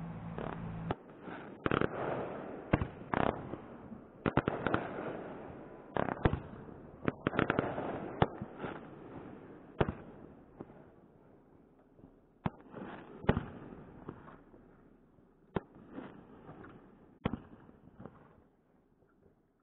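Distant fireworks going off: irregular bangs and crackling, thinning out and growing fainter toward the end. A low steady hum cuts off about a second in.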